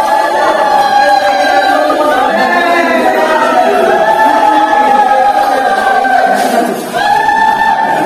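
Several voices singing together in chorus, holding long steady notes that change every second or two, with a short break about seven seconds in, like a victory chant.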